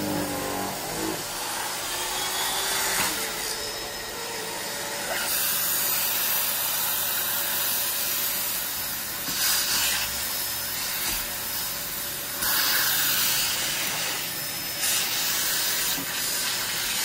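A Dyson DC21 canister vacuum runs with its air-driven turbine brush tool working over a fabric couch cushion. The rush of suction swells louder several times as the tool is moved and lifted, and the turbine brush bogs down a little under the load.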